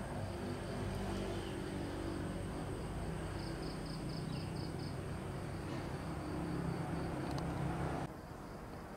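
Outdoor ambience: a steady low motor-like hum, with a high-pitched pulsing sound about five times a second in two runs. The whole cuts off abruptly near the end.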